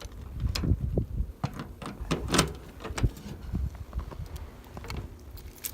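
Footsteps crunching irregularly on icy, snowy ground, with wind buffeting the microphone.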